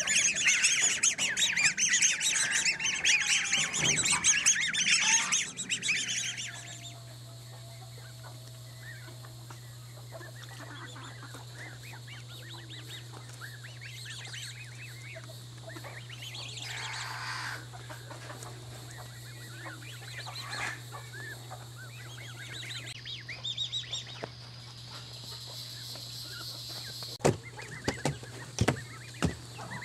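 Black swan cygnets calling, a dense chorus of high-pitched calls for the first six seconds, then only scattered faint calls over a steady low hum. A few sharp taps come near the end.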